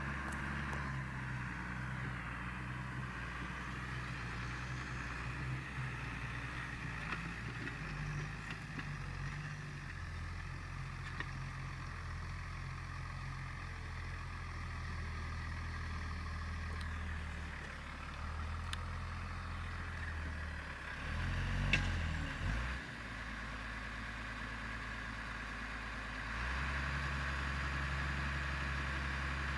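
Deutz-Fahr Agrotron 6.45 tractor engine running steadily while pulling a plough, its note stepping up and down a few times. A brief rise and fall comes about three-quarters of the way through, and it runs louder near the end.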